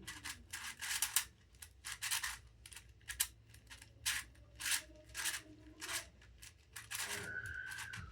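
3D-printed speed icosaix twisty puzzle being turned by hand: its plastic pieces scrape and click through a series of short rasping turns, roughly one every half second to second. The faces are stiff and hard to turn, not yet worn in.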